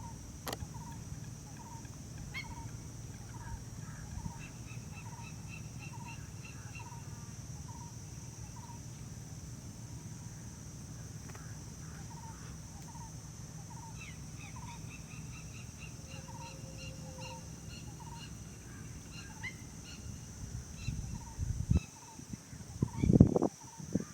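Birds calling over a steady high insect drone: a short note repeated about once or twice a second, with two runs of quick higher chirps. A low steady hum runs underneath, and a few louder low rumbling sounds come in near the end.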